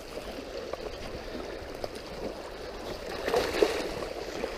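Water of a small stream running, with dogs splashing through it as they are rinsed of mud; the splashing is loudest about three seconds in.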